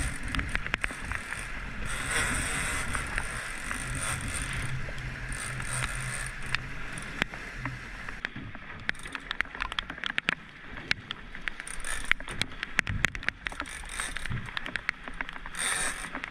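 A boat's outboard motor running with water rushing along the hull, and a fishing reel clicking in irregular runs, thickest in the second half.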